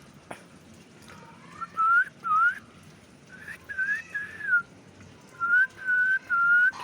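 Clear whistled notes in three short phrases: first two rising notes, then a group of three, then three level notes held near one pitch.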